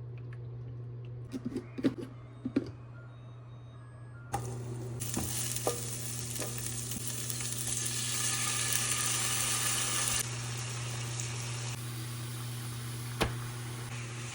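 Food frying in a frying pan: a few light clinks of utensils on the pan, then about four seconds in a loud, steady sizzle sets in and keeps going, over a steady low hum.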